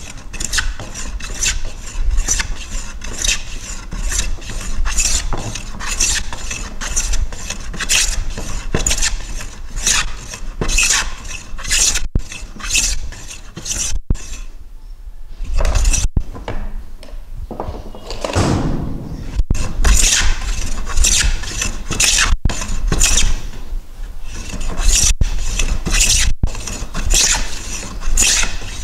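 Hand plane shaving a wooden board in quick repeated strokes, each stroke a rasping swish. There is a short pause about halfway through.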